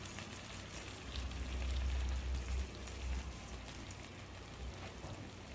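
Biryani masala frying in a pan, a soft steady sizzle with faint crackles. A low rumble comes in about a second in and fades a couple of seconds later.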